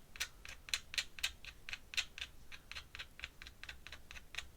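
Pen scratching across paper in quick, even hatching strokes, about four a second.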